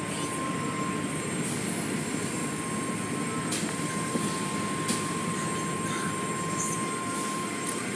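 Automatic car wash heard from inside the car: a steady rush of water spray and spinning cloth brushes against the glass and body, with a thin steady tone from the machinery that stops near the end and a couple of sharp knocks in the middle.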